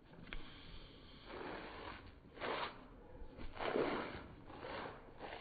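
A pug's noisy breathing: four short, unpitched huffs through the nose and mouth, the loudest a little before the end.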